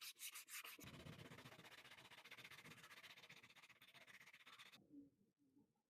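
Hand sanding: quick rubbing strokes, about five a second, then after about a second a fainter, steadier rubbing that stops about five seconds in.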